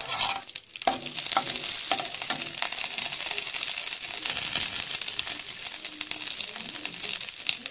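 Mustard seeds spluttering in hot oil in a kadai: a steady sizzle crowded with many small pops, growing louder about a second in.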